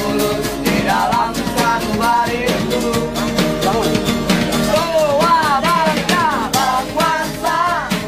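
A singer accompanied by strummed acoustic guitar and a steady percussive beat, in the manner of train buskers.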